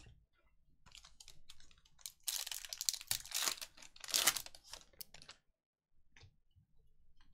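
Foil trading-card pack wrapper being crinkled and torn open. It starts as faint rustling, then turns into a few seconds of loud crackling from about two seconds in to about five seconds in, with a few faint ticks after it.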